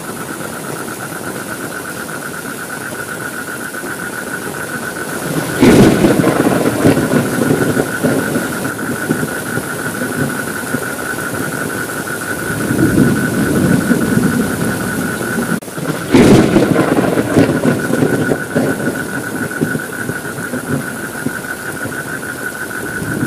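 Thunderstorm with steady rain: a thunderclap about six seconds in and another about sixteen seconds in, each followed by several seconds of rumbling, with a smaller rumble in between. A constant high, slightly warbling whine runs under it all.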